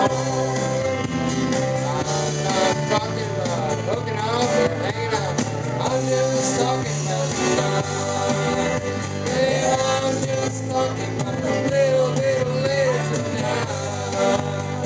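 A man singing karaoke into a handheld microphone over a recorded backing track played through a PA system, the sung melody carried on top of a steady accompaniment.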